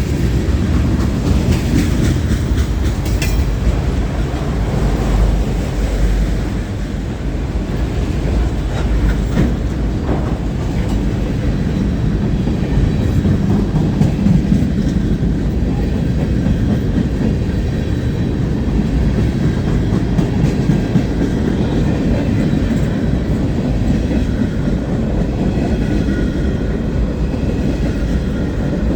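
Long CSX mixed freight train rolling past: a steady rumble of steel wheels on the rails, with faint clicks from the wheels crossing rail joints.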